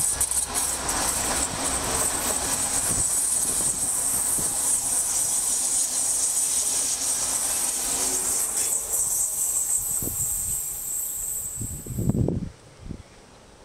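Czech Railways class 680 Pendolino electric tilting train passing close at speed: a steady rush of wheels on rail with a loud high hiss, which cuts off suddenly about twelve seconds in, leaving much quieter outdoor sound with a few low thumps.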